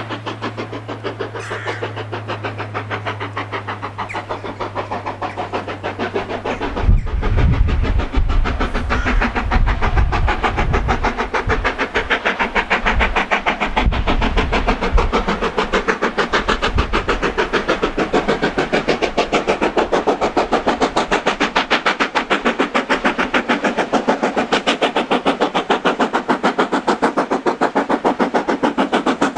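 LMS Stanier Black Five 4-6-0 No. 45231, a two-cylinder steam locomotive, working hard up a bank, its exhaust beating in a fast, even rhythm of about four beats a second that grows louder as it approaches. A steady low hum at first gives way, about seven seconds in, to an uneven low rumble lasting some ten seconds.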